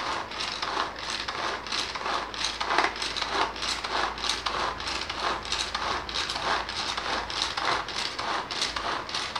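Tupperware Turbo Chef pull-cord chopper worked in a quick, even rhythm of about two to three pulls a second. Each pull spins its three blades, which chop the food in the bowl with a crunching whirr.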